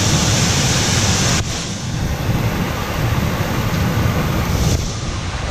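Steady rumbling noise of wind buffeting the microphone over water pouring across a small concrete weir, with a brighter hiss in the first second and a half. No firecracker bang is heard.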